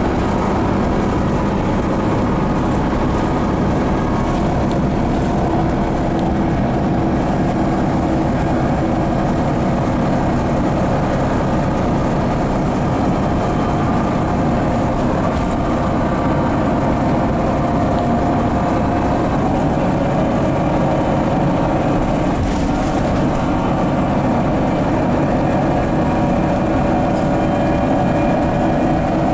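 Cabin of a 2008 Solaris Urbino 12 city bus under way: its DAF PR183S3 9.2-litre inline-six diesel and drivetrain running with a steady low hum, a few tones in it drifting slowly in pitch.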